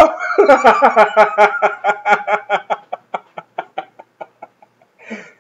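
A man laughing hard: a long run of quick pulsed laughs that grow fainter and further apart and die out about four seconds in.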